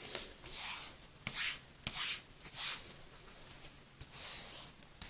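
Hand rubbing freshly applied hockey tape smooth on a hockey stick blade: about five short rubbing strokes.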